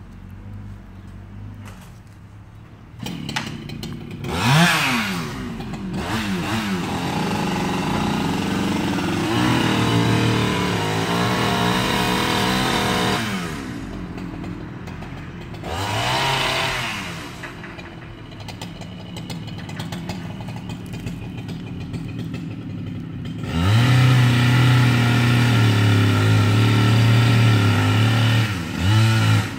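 Two-stroke chainsaw engine idling, then revved up and run at speed with several rises and dips in pitch. It runs loudest and steadiest for the last five or six seconds before easing off.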